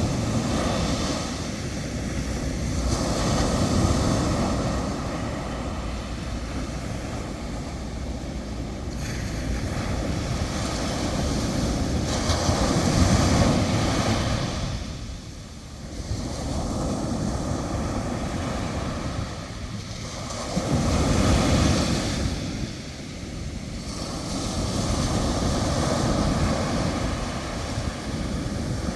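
Ocean surf: waves breaking and washing in, the rush swelling and falling away every several seconds, with wind rumbling on the microphone.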